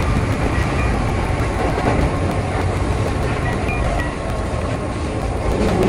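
Keihan 8000 series electric train running along the track: a steady, deep rumble of wheels and train noise.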